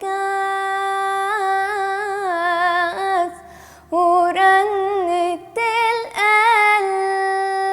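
A teenage girl singing solo and unaccompanied in Arabic, holding long notes with wavering melismatic ornaments, with a short breath pause about three seconds in.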